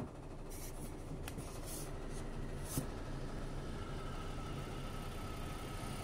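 Steady low hum of an electric egg incubator's fan running, with a few brief rustles in the first three seconds.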